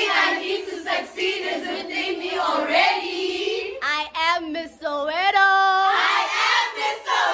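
A group of high-pitched voices singing and calling out together, with a few held, wavering notes partway through.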